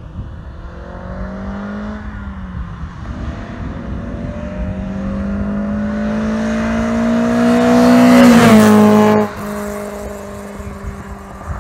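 A car accelerating hard toward and past, its engine note climbing through a gear and growing louder to a peak about eight seconds in. The sound then drops suddenly to a quieter, steady engine tone.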